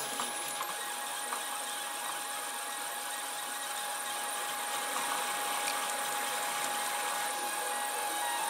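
Protomaker Sprint FDM 3D printer running as it prints: a steady whine from its motors over an even hiss.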